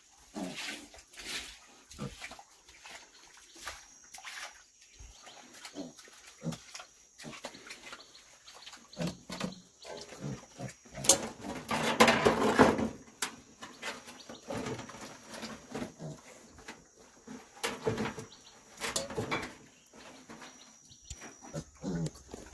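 Black sow and piglets grunting in a concrete pen, with short irregular knocks and scuffs, and a louder stretch about eleven to thirteen seconds in.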